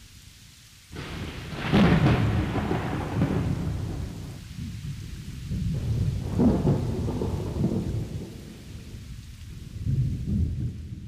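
Thunder rumbling over rain. It starts suddenly about a second in and swells again twice.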